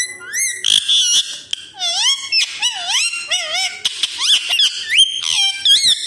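Indian ringneck parakeet calling in a fast, nearly unbroken string of chirps and whistled notes that swoop up and down in pitch.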